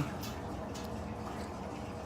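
A few faint, wet clicks of someone chewing food with their mouth, over a steady low background hum.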